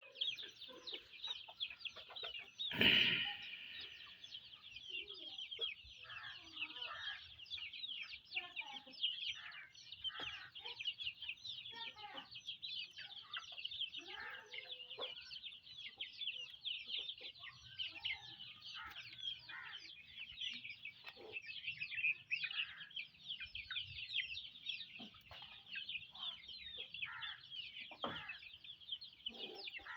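A flock of young chickens peeping in a steady, high chorus of rapid chirps, with scattered lower clucks among them. A brief loud clatter about three seconds in.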